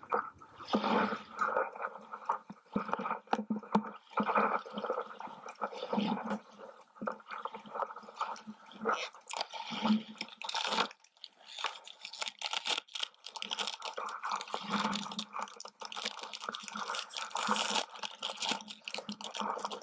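Crinkling and rustling of toy packaging handled close up, in irregular crackles throughout: a small cardboard blind box opened and the foil blind bag inside pulled out and torn open.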